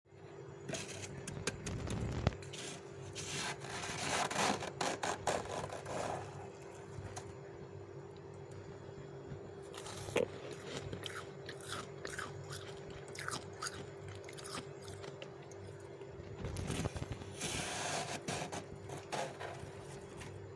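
Soft, snowy freezer frost crunching as a metal spoon scrapes into it and scoops it up, in two louder spells of dense crunching with quieter crackles between. A steady low hum runs underneath.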